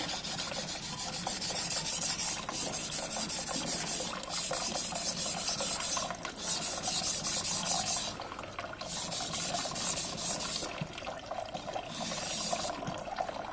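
Carbon-steel yanagiba blade being sharpened on a wet Japanese whetstone: a rasping scrape of quick back-and-forth strokes, coming in runs broken by short pauses.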